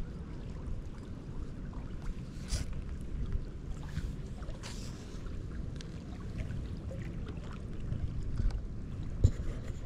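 Outdoor wind rumbling on the microphone, with a few brief hisses and small clicks, the sharpest near the end.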